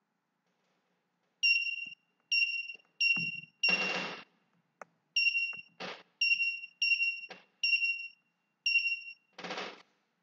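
Loud high-pitched electronic beeps, about nine, each about half a second long with a short falling tail, at uneven intervals. A few short noisy bursts fall between them.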